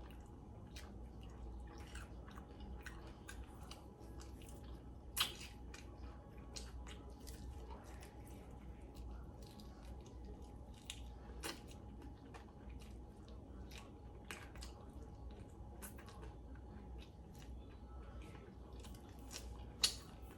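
A person chewing and biting chicken wings, with irregular wet mouth clicks, and a sharper, louder click about five seconds in and another near the end. A faint steady hum sits underneath.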